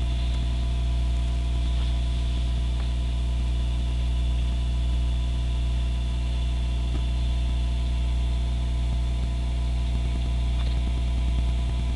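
Steady low electrical hum with a constant hiss and a few faint steady whining tones above it.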